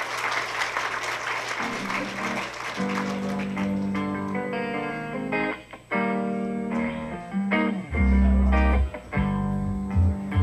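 Applause dies away over the first couple of seconds, then a recorded song starts with plucked guitar; a heavy bass comes in near the end.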